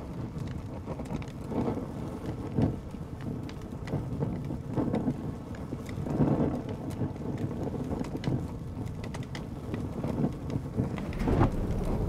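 Paper burning: irregular crackling with uneven low rumbles.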